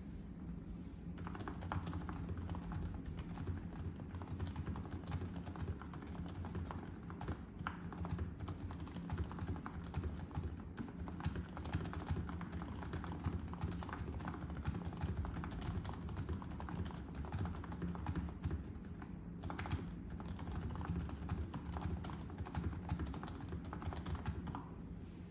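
Continuous typing on a Womier M68 keyboard fitted with AEBoards Raed HE 45 g magnetic Hall-effect switches: a fast, even stream of keystrokes starting about a second in.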